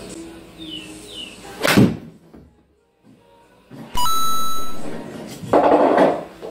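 A golf club striking a ball on a screen-golf hitting mat: one sharp crack about two seconds in, over faint background music. About four seconds in comes a loud steady electronic tone, and near the end a short noisy burst.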